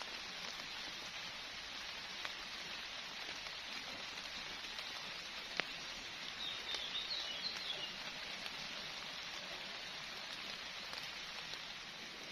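Summer rain falling steadily, an even hiss with a few single louder drop strikes. A bird chirps briefly, a short run of high notes about six to eight seconds in.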